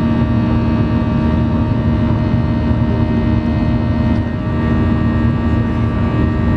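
Boeing 737-900ER in flight, heard from inside the cabin over the wing: the CFM56-7B turbofan and the airflow make a loud, steady drone with several steady whining tones over it.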